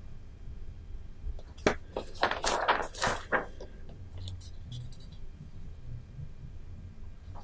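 A brief cluster of clicks, clinks and rustles of small objects being handled, starting a little under two seconds in and lasting about two seconds, over a low steady room hum.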